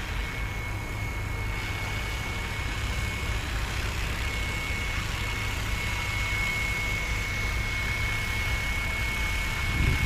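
Electric 450-size RC helicopter (FW450) descending and hovering under GPS autopilot return-to-home. A thin steady high whine from its motor and rotor sets in about a second and a half in and grows slightly louder as the helicopter comes closer. Under it runs a low rumbling noise, with a brief low swell near the end.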